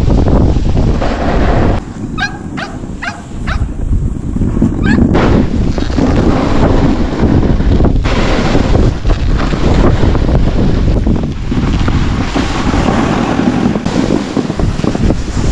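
Heavy wind rumble on a moving camera's microphone while skiing alongside running dogs. About two seconds in, the wind noise drops for a few seconds and a dog gives a quick run of about five short yips, before the wind rumble returns.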